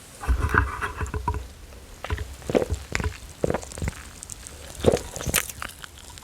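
Close-miked drinking of Coca-Cola: a sip in the first second, then about five separate gulping swallows.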